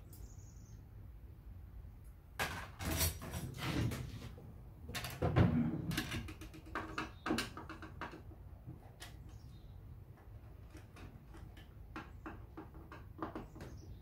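Irregular clicks, knocks and rattles of drawer hardware being taken off a dresser, busiest and loudest in the first half, then lighter scattered clicks.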